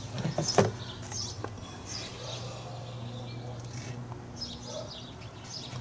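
A few sharp clicks and knocks, most near the start, from the BMW's plastic air filter housing being worked loose and pulled out. Birds chirp in the background over a steady low hum.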